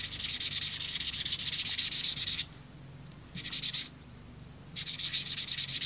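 Gloved fingers rubbing fine abrasive stropping paste into the face of a leather strop with quick back-and-forth strokes, a dry hissing scuff. It comes in three spells, a long one first, then a short one and another near the end, with brief pauses between.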